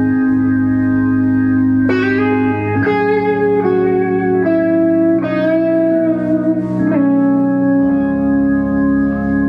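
Live rock band music: an electric guitar plays a slow lead melody of long, sustained notes. A new note comes in about two seconds in, then one every second or so, over steady held low notes.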